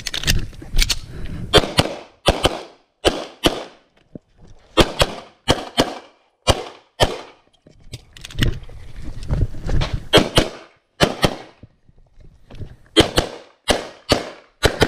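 Pistol shots fired in quick succession: about two dozen sharp cracks, many in close pairs a fraction of a second apart, in short strings with brief gaps between them.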